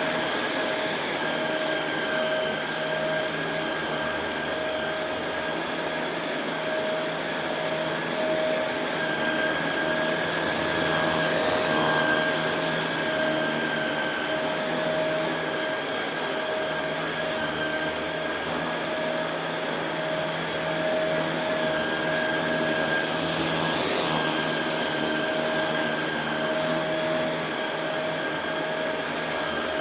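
Shark Rotator Pro Lift-Away NV500 upright vacuum cleaner running steadily on carpet, its motor giving an even, high whine.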